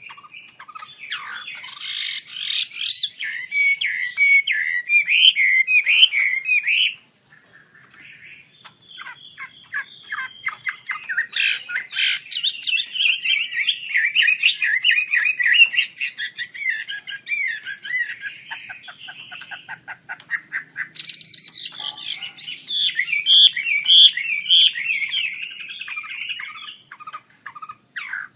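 Chinese hwamei singing in full voice: long runs of rapid, varied whistled notes, broken twice by short pauses.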